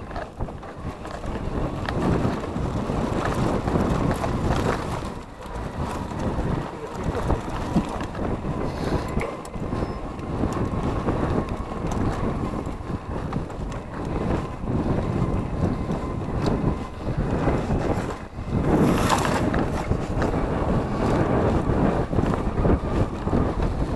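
Wind buffeting the camera's microphone on a mountain bike ride over a dirt singletrack, with tyre rumble and the rattle and knocks of the bike over bumps, and a faint steady whine throughout. A louder rush of wind comes about nineteen seconds in.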